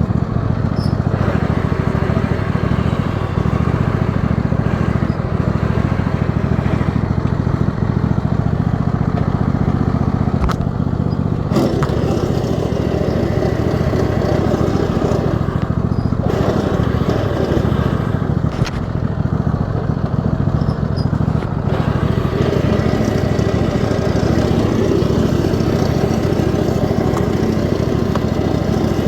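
Riding lawn mower's 22-horsepower engine running steadily, its tone shifting about a third of the way in.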